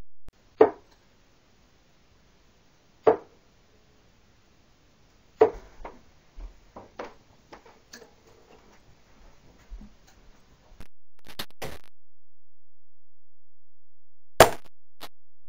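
Darts striking a Winmau Broadside bristle dartboard: three sharp thuds about two and a half seconds apart, then small clicks and knocks as the darts are pulled out of the board and handled. One more dart thuds into the board near the end.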